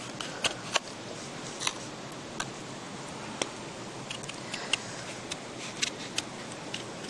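Knife cutting and coring an apple on a wooden board: small, irregular clicks and crisp snaps, about ten in all, over a low steady hiss.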